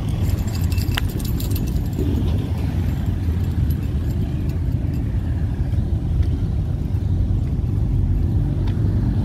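Steady low rumble of vehicle engines and tyres in slow-moving traffic, heard from inside a car, with a few light rattling clicks in the first couple of seconds.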